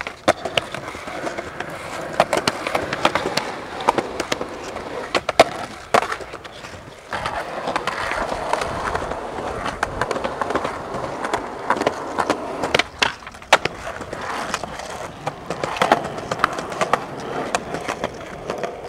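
Skateboard wheels rolling on concrete, broken by many sharp clacks and knocks of the board hitting the ground and a concrete ledge. There is a brief lull about seven seconds in.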